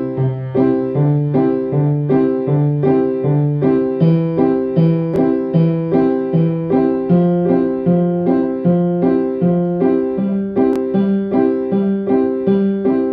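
Alarm tone playing a piano melody: even repeated chords about two a second over a bass line that climbs step by step.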